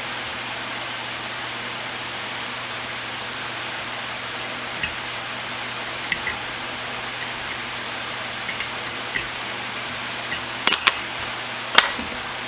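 Small metal parts and hand tools clinking and tapping together as an old bench vise is taken apart, scattered light clinks that come more often in the second half, over a steady hiss with a low hum.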